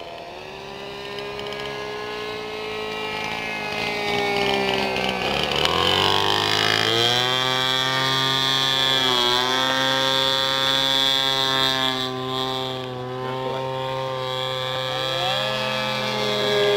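Radio-controlled model airplane's 31cc Ryobi two-stroke gas engine spinning a 16x8 three-blade propeller in flight. It rises in pitch and grows louder about six seconds in, then runs steady at high power with a brief dip in pitch near the middle.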